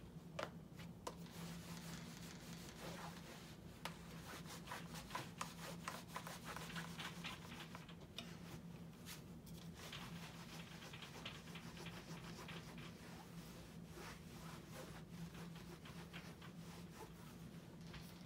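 Clothes iron sliding and rubbing back and forth over fabric on an ironing board, used dry without steam, with scattered small clicks and knocks. A steady low hum runs underneath.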